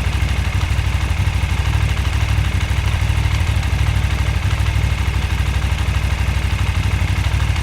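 Stationary motorcycle engine running steadily at idle, an even, fast low pulsing that holds the same speed throughout with no revving.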